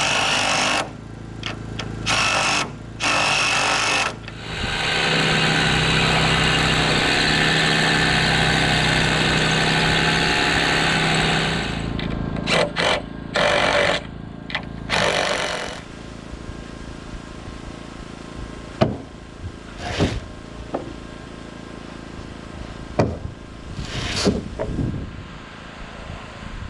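Power tool running in several short bursts, then steadily for about seven seconds, then in more short bursts. After that it is quieter, with a few sharp knocks.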